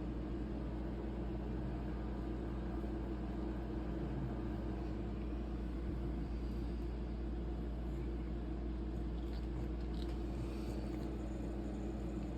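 A steady low mechanical hum that holds even throughout, with a few faint high ticks near the end.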